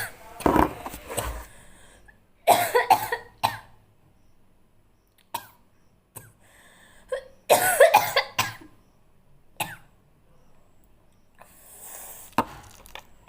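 A woman coughing and sneezing in fits, set off by an irritant she says burns like chilli. A cluster of harsh bursts comes about two and a half seconds in and another around seven and a half seconds, with single short coughs between and near the end.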